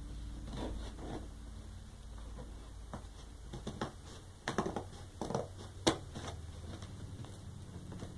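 Scissors cutting through a cardboard box, with a run of sharp snips and crackles of cardboard and packing from about three to six seconds in, the loudest near six seconds, over a steady low hum.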